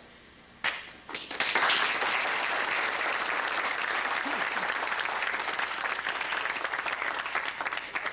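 Group of onlookers applauding: a first clap about half a second in, a few more, then steady applause from about a second and a half in.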